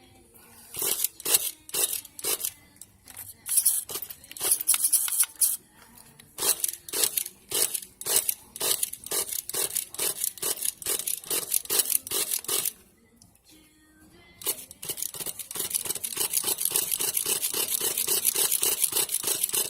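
An engine being cranked over by its starter without catching: several short bursts of cranking, a brief pause, then a longer steady crank with an even rhythm of about five strokes a second.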